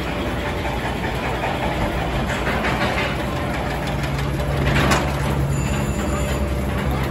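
Roller-coaster car running on a spiral steel track around a tower: a steady rumble, joined about four seconds in by a low hum, with a brief hissing rush just before five seconds.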